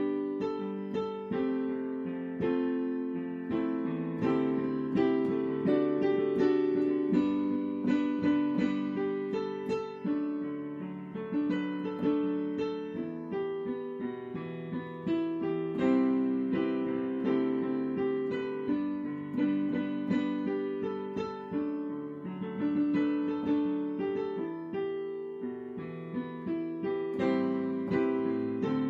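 Solo piano or electric piano playing a slow, chordal piece, notes struck and left to ring.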